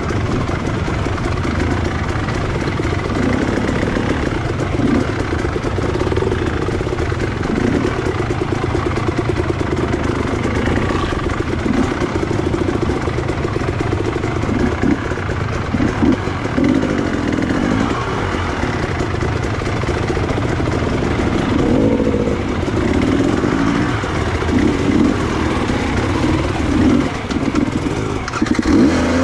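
Trail motorcycle engine running at low to moderate revs, with repeated short throttle blips as the bike picks its way down a slippery, rocky descent.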